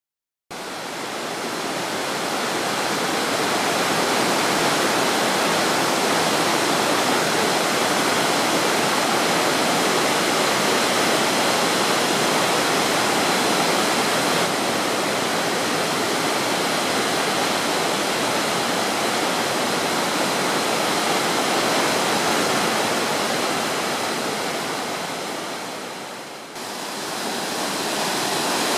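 Multi-tier waterfall rushing: a steady, dense wash of falling water. Near the end it dips briefly, then comes back abruptly.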